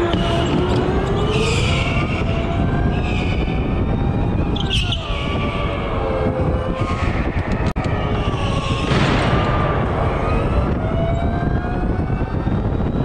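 Electric go-kart's motor whine rising and falling in pitch as the kart speeds up and slows for the corners, over a steady low rumble. Several brief, higher squeals cut in along the way.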